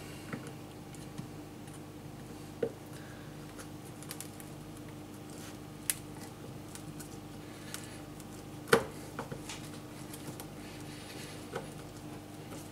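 Faint, sparse clicks and small knocks of hand work with small hardware and tools, over a faint steady hum.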